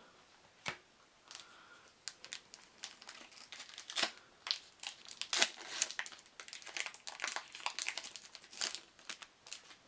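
Plastic wrapper of a Magic: The Gathering booster pack crinkling and tearing as it is opened, a run of irregular crackles with louder snaps about four and five and a half seconds in.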